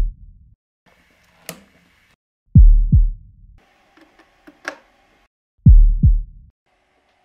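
A heartbeat sound effect: deep double thumps, each stroke falling in pitch, repeating about every three seconds. Short quieter snippets with a few sharp clicks fall in the gaps between them.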